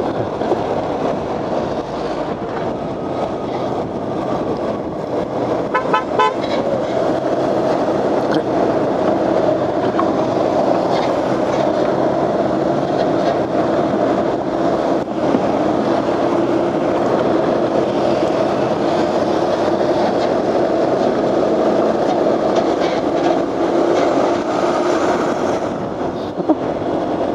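Motorcycle riding noise at a steady cruising speed: a continuous engine drone with road and wind noise.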